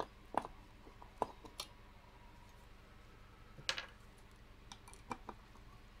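Scattered light clicks and taps of a screwdriver and gloved hands working the screws out of the aluminium heat sink on a plastic thermoelectric mini fridge. There is a slightly longer, brighter scrape a little under four seconds in.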